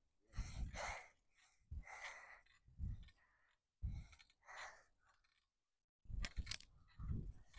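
A person breathing heavily close to the microphone, one breath every second or so, with two short clicks about six seconds in.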